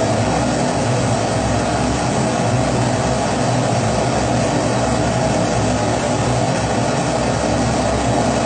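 Kerosene pressure stove (Primus-type burner) burning at full flame, giving a steady, even rushing noise that does not change.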